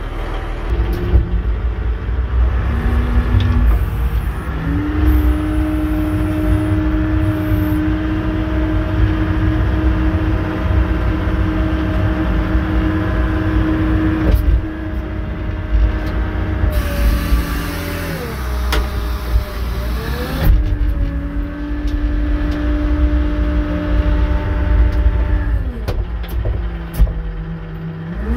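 Cummins 6BT 12-valve diesel of a Dresser 515 wheel loader running under throttle while driving, heard from inside the cab with a heavy low rumble. Its pitch rises about five seconds in and holds steady, drops and wavers around two-thirds of the way through, rises again, then falls away near the end.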